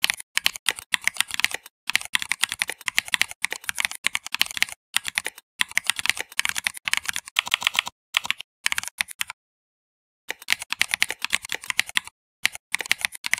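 Fast typing on a computer keyboard: runs of rapid keystrokes broken by short pauses, the longest about a second long about two-thirds of the way through.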